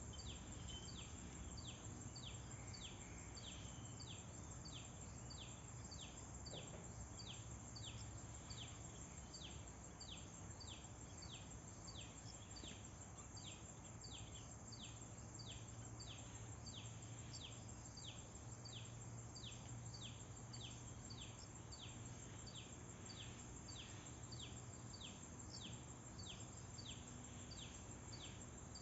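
A bird repeating a short, high, falling call about twice a second, steadily and without a break, over faint background noise and a low hum.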